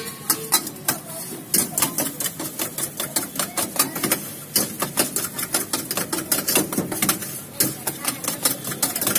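Metal utensil clinking and tapping against a steel vessel as food is mixed in it: a rapid, uneven run of sharp clicks, several a second.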